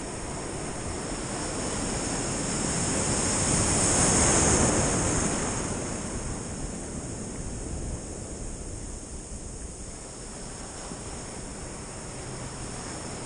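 Ocean surf: a breaking wave's whitewater rushing around the camera at water level, swelling to a peak about four seconds in and then fading back to a steady wash.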